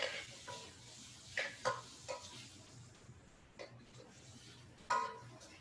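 A metal spoon knocking and scraping against a stainless steel sauté pan as chicken pieces are stirred into a spice and tomato base: a series of irregular, short ringing clanks, the sharpest at the very start.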